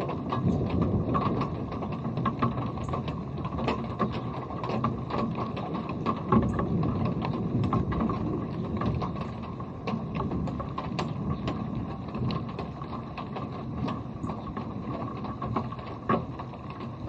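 Rain, with a steady hiss and low rumble and many irregular sharp ticks of drops striking close to the microphone.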